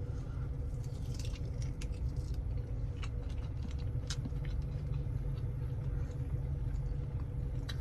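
Someone eating a buffalo wing, with scattered small clicks and smacks of chewing over a steady low hum.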